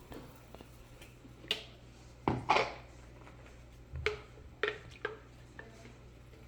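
Kitchen containers and utensils being handled: a handful of separate sharp clinks and knocks, the loudest a quick pair about two and a half seconds in, over a low steady hum.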